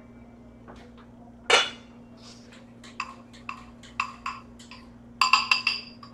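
Kitchen utensils clinking against dishes: one sharp ringing clink about a second and a half in, a run of light taps, then several quick ringing clinks near the end.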